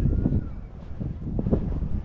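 Wind buffeting the camera microphone: an uneven low rumble that rises and falls in gusts.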